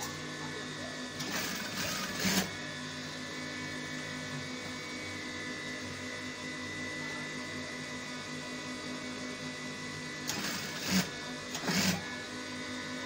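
Industrial sewing machine stitching three layers of waistcoat fabric together. It runs in two short bursts, about a second in and again near the end, with a steady motor hum between them.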